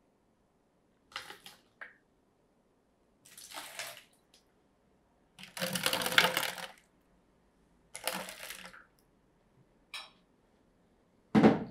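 Water poured from a plastic filter jug onto foil baking trays in several short splashes, the longest about six seconds in, then a brief louder knock near the end.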